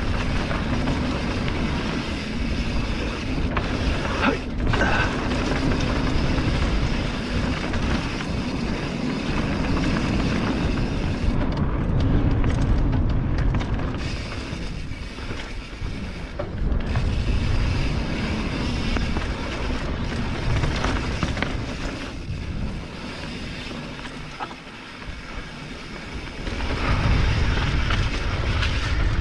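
Mountain bike descending a dirt singletrack: tyre rumble and frame rattle mixed with wind buffeting the action-camera microphone, rising and falling in loudness.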